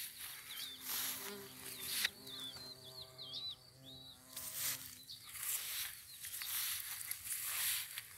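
A carpenter bee buzzing past for a few seconds with a low, steady hum that fades out near the middle. A small bird gives short high chirps over it, and there are repeated bursts of rushing noise on the microphone.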